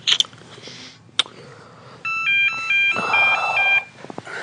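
An electronic ringtone sounds for just under two seconds, starting about two seconds in, as a quick warbling pattern of beeps alternating between two pitches. A sharp click comes near the start and another about a second in.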